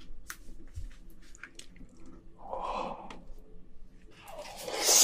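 ASMR eating sounds: small wet clicks of gloved fingers working a handful of cooked king crab meat, then near the end a loud wet slurping sound as the meat is taken into the mouth.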